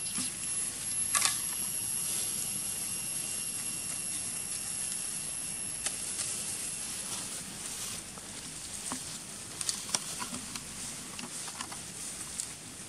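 Scattered rustles and light clicks of monkeys moving in dry leaf litter, the loudest about a second in, over a steady hiss with a faint high whine that fades out about seven seconds in.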